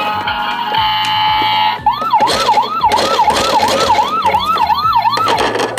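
Background music, then about two seconds in an electronic siren sound: a quick rising whoop repeated about nine times, a little under three a second, stopping shortly before the end.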